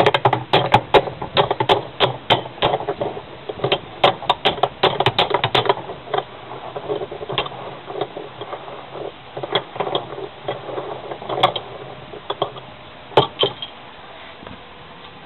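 Hammer blows on a socket bar fitted to the washing machine drum's shaft nut, struck anticlockwise to break the nut loose: a fast run of sharp metal knocks, about three or four a second. After about six seconds they thin to occasional single blows.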